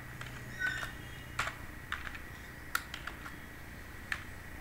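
Computer keyboard being typed on: about seven separate keystrokes at an uneven pace, over a faint steady hum.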